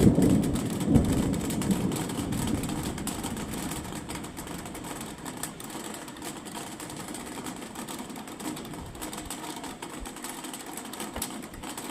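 Thunder from a summer storm: a loud clap right at the start that rolls into a low rumble, swells again about a second in, and fades over a few seconds into a steady hiss.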